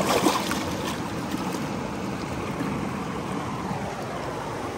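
A released Murray cod kicks its tail and splashes off through shallow water with a loud splash at the very start, then the steady rush of river rapids.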